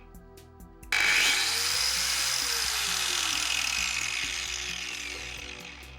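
Makita GA4530R 115 mm angle grinder switched on about a second in and running with no load, a loud high whine, then fading as it winds down near the end. The grinder has a soft start. Background music plays underneath.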